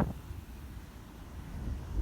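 Low rumble of sea surf with wind on the microphone, easing into a quieter lull and picking up again near the end.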